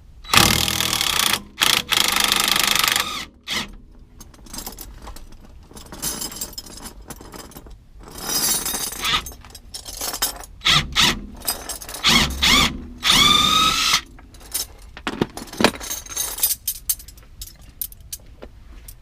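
Power tool run in several bursts on the axle nut of a Honda Accord's front hub, trying to loosen it: two long bursts at the start, more after about eight seconds, the last ending in a rising whine.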